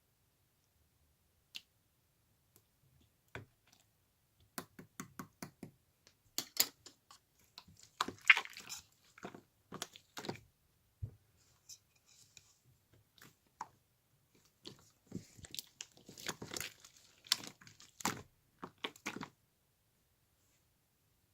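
Irregular sharp clicks and taps coming in quick clusters, with quiet gaps between them.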